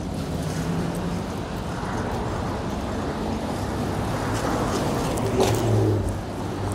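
City street traffic: motor vehicle engines running and passing, a steady low hum under road noise. It grows loudest about five and a half seconds in, as one vehicle comes closest.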